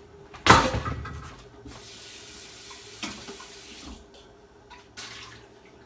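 A sharp clunk as a stainless steel pot is handled, then a kitchen tap runs into the pot in the sink for about two seconds, with a clink partway through and another knock near the end.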